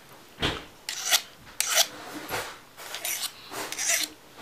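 Short rasping strokes of an abrasive sharpener drawn along the steel blade of hand pruning shears, about seven strokes at uneven half-second intervals, working off the burr on the freshly sharpened edge.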